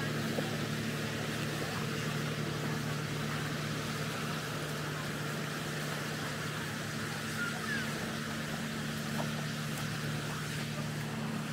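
A steady engine hum holding one unchanging pitch, over a faint wash of outdoor background noise.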